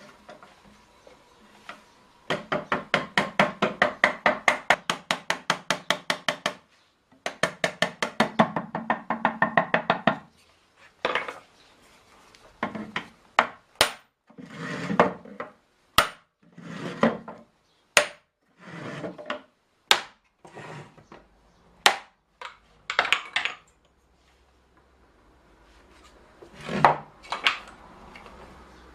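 A hammer striking a wooden hoop driver to knock the hoops of a small maple barrel down and seat the newly fitted head. It starts with two runs of fast, even taps, about seven a second, then slower single knocks about a second apart.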